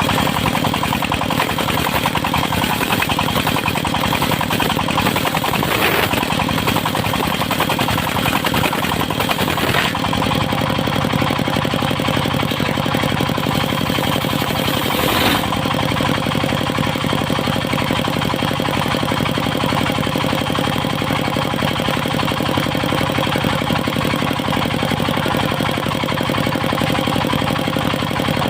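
Engine of a circular sawmill running steadily, a loud mechanical drone with a rapid even pulse. A high hiss drops away about ten seconds in, leaving the engine's steadier drone.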